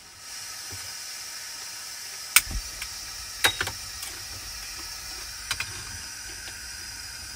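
MSR camp stove burner running with a steady hiss, a low rumble joining about two and a half seconds in, while water heats to boil. A few sharp clicks or knocks, likely pot or lid handling, come through the hiss.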